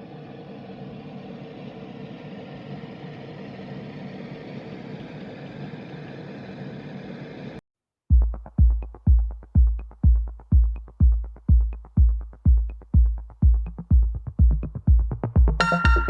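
Small sound machine's speaker playing a steady rushing noise track, which cuts off about seven and a half seconds in. After a short silence it switches to a deep, even thumping beat about twice a second, and a melody of ringing tones joins near the end.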